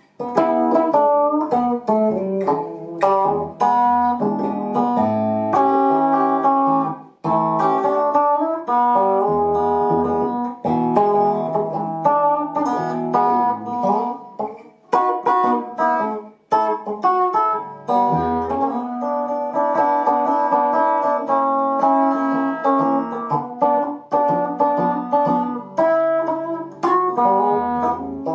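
Fender Stratocaster electric guitar played with picked single notes and chords, with a few short breaks. The selector is in the fourth position (neck and middle pickups) and the tone control is turned fully down, for a bassy sound.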